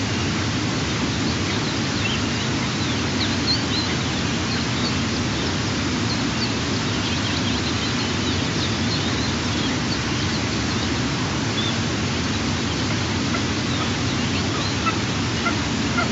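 Steady rushing hiss of outdoor background noise, with faint, short, high bird chirps scattered through it.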